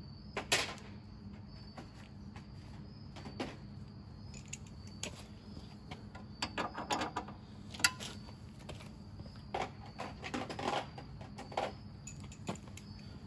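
Scattered clicks and clinks of hand tools and small metal parts being handled while unbolting a leaf blower's fuel tank, with a few sharper knocks and a cluster of clatter in the middle. A steady low hum runs underneath.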